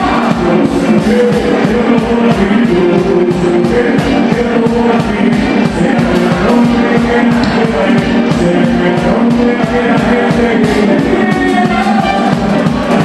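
Live band music: a drum kit keeping a steady beat, with a trumpet playing over it.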